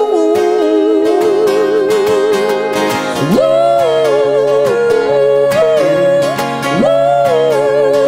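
Live acoustic folk-rock: a singer holds long notes with a wavering vibrato and slides up into new phrases, over strummed acoustic guitar.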